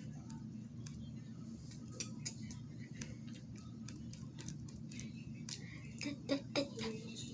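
Small, irregular ticks and taps of a paintbrush against the painting surface and palette, with a few louder clicks about six seconds in, over a steady low background hum.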